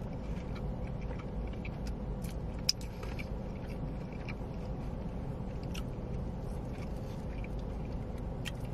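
A person chewing food, with a few sharp crisp clicks from biting, over a steady low background hum.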